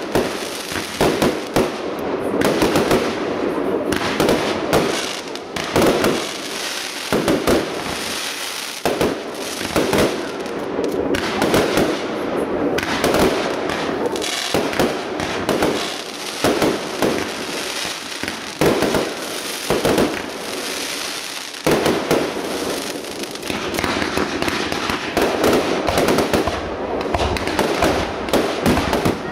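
Aerial fireworks bursting in quick succession: a continuous run of bangs with crackling between them.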